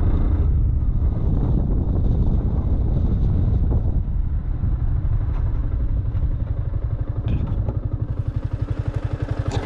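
Motorcycle engine running under heavy wind rumble on the GoPro's built-in microphone, which has no wind-shielding mic adapter. In the second half the engine's beat turns into a distinct, even pulsing as the bike slows to low revs.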